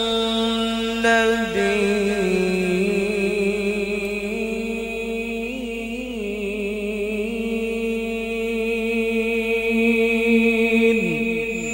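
A male qari reciting the Quran in the melodic tilawat style, holding long notes with a slight waver. The pitch steps down about a second and a half in and falls away in a run of quick ornaments near the end.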